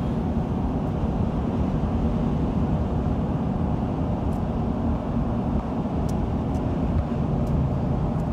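Steady road noise heard inside a car's cabin while driving on a highway: a low hum of tyres and engine, with a few faint ticks.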